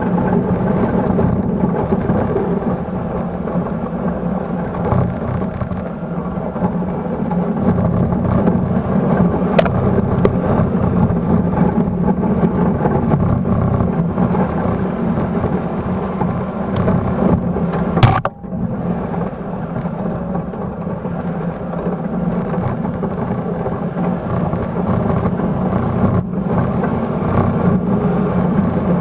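1996 Suzuki Carry mini truck's engine running steadily under load as its steel plow blade pushes snow, with a continuous rushing scrape of snow over the blade. A single sharp knock about two-thirds of the way through.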